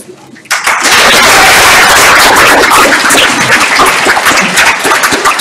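Spectators clapping loudly at the end of a grappling round, setting in about half a second in.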